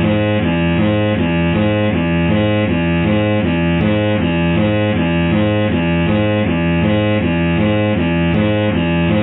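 Truck horn sample pitch-shifted into a repeating melody of short notes, muffled by a filter that cuts everything above the midrange.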